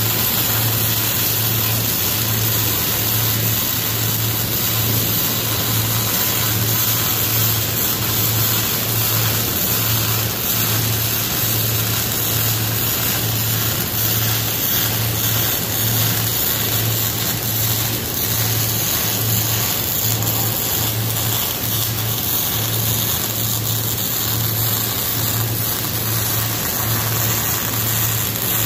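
Wire-feed (MIG) welding arc burning continuously on steel plate: a steady crackling hiss over a low hum, with no breaks.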